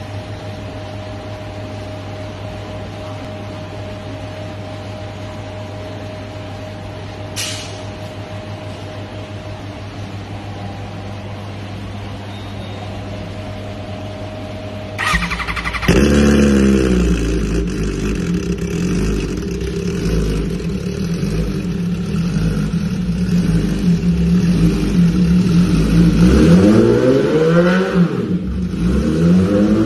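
MV Agusta Brutale motorcycle engine start-up. After a steady low hum and a single click, the starter cranks about halfway through and the engine catches with a quick rev. It settles into a steady idle, then is revved up and down several times near the end.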